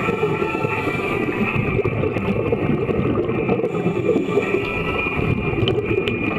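Underwater ambience in a swimming pool heard through an underwater camera: a dense, steady churning of water and bubble noise, with a faint constant high whine.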